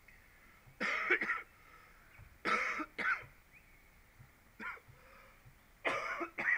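A person coughing in four short bouts, three of them quick doubled coughs.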